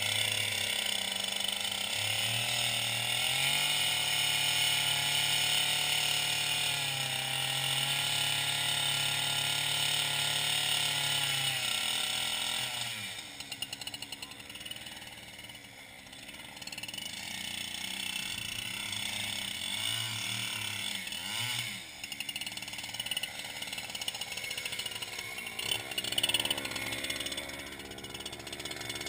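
Chainsaw running hard as it cuts through thick lake ice, then easing to a quieter, uneven run about thirteen seconds in. Near the end come a few sharp knocks as a steel ice spud chips at the hole.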